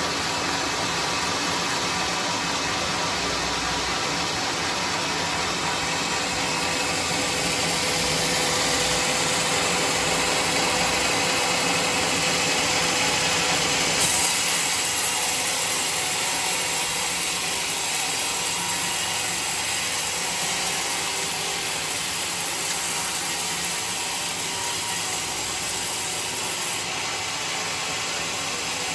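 Band sawmill running steadily while cutting a log. About halfway through, the sound changes abruptly, turning brighter and thinner.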